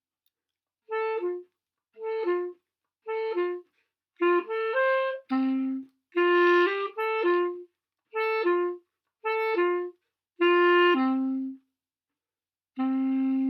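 Solo clarinet playing the closing bars of a Grade 3 piece. There are short falling two-note figures about once a second with rests between them, then a long low note held from near the end.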